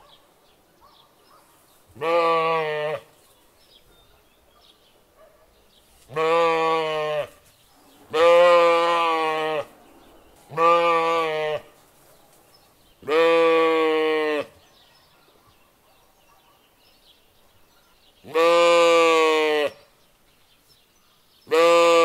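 Sheep bleating: seven long bleats of about a second each, with pauses of one to four seconds between them. The last one begins near the end.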